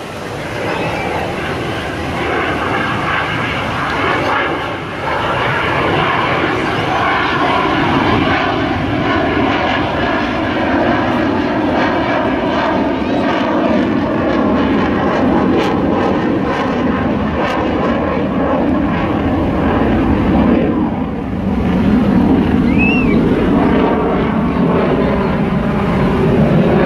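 Military fighter jet flying overhead, its jet engine noise loud and steady with a slow phasing sweep. The noise builds over the first few seconds, dips briefly about three-quarters of the way through, then swells again.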